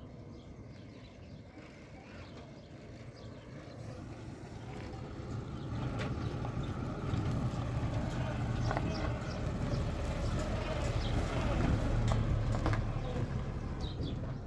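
Mazda pickup truck's engine running as it drives up and pulls in, growing steadily louder over the first ten seconds and dropping off near the end.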